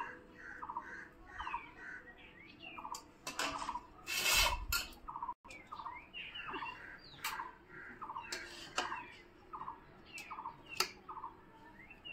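A bird calls in the background in a steady series of short notes, about two a second. Over it come clinks and scrapes of a serving spoon against steel plates and a black karahi as curry is served, the loudest a brief burst of noise about four seconds in.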